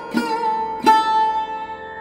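Background instrumental music: plucked string notes over a held drone, two notes struck about a second apart and left ringing out.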